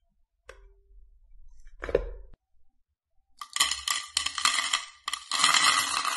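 Coarse pink Himalayan salt crystals pouring off a wooden spoon and landing in a dense run of tiny clicks and clinks, with a short break about five seconds in. Earlier, about two seconds in, a soft thump.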